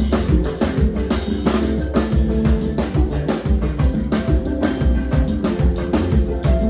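A live band playing, led by a drum kit with steady kick and snare hits over a bass line and held chords.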